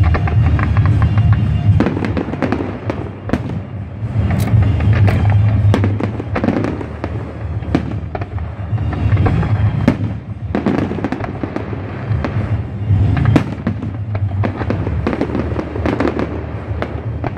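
Fireworks display: aerial shells bursting in a rapid, irregular series of bangs, with music playing underneath.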